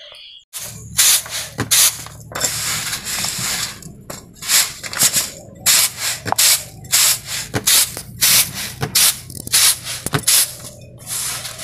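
Grass broom sweeping a concrete floor in repeated brisk swishing strokes, gathering dirt into a woven bamboo tray. The strokes begin about half a second in and come roughly one to two a second.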